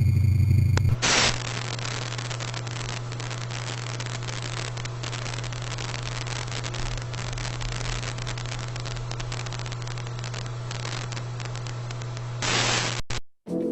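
Television static hiss over a steady low hum. It cuts in abruptly about a second in, replacing a loud low buzzing tone, swells louder near the end, and drops out briefly.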